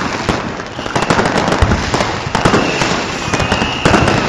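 Fireworks and firecrackers going off in large numbers: rapid overlapping bangs over a continuous crackle of bursting shells. A thin whistle is held for over a second from a little past halfway, dipping slightly in pitch.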